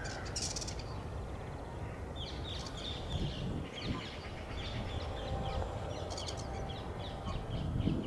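Birds chattering in many short, quick chirps and squawks, over a steady low rumble of outdoor background noise.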